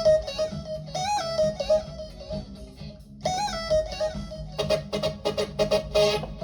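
Keyboard synthesizer on an electric-guitar-like lead tone, playing a melodic phrase. Several notes are pitch-bent up into place, about once a second early on and again after about three seconds, and quick runs of short notes follow toward the end.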